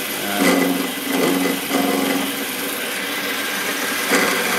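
Chester Model B Super 3-in-1's milling head running, a 16 mm end mill cutting across a mild steel plate about half a millimetre deep: a steady cutting noise, with a humming tone that comes and goes over the first couple of seconds.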